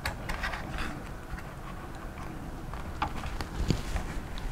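A few scattered light clicks and taps as the AMD Wraith Prism cooler's retention clip is worked by hand onto the motherboard's mounting bracket tab.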